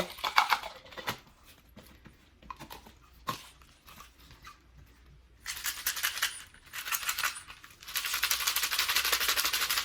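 Ice cubes rattling and chattering inside a personal bullet blender's cup as the blender is run in two short bursts, the second longer, while it struggles to crush the ice. A few clicks near the start.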